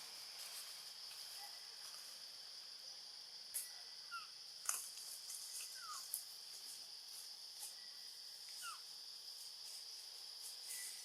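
Steady high-pitched drone of insects, with three short falling chirps and a few scattered sharp clicks.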